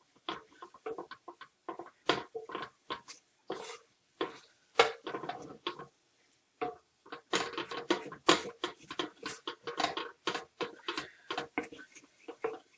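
A utensil scraping and clicking against a pan as flour and melted butter are stirred together into a roux. The sound is a run of quick, irregular clicks and scrapes.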